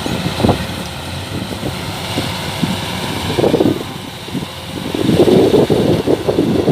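Kubota DC-105X combine harvester's diesel engine running, a steady rough machine noise that gets louder about five seconds in.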